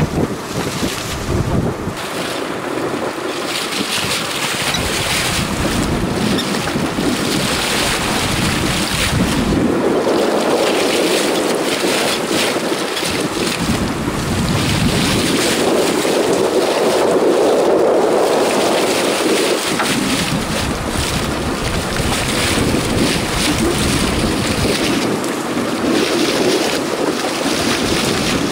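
Wind buffeting the microphone over the wash of the open sea, swelling and easing every few seconds.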